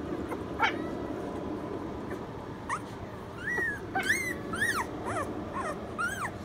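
Rottweiler-Doberman mix puppy whining while held on its back: one short cry near the start, then from about three seconds in a run of high cries that rise and fall, several to the second.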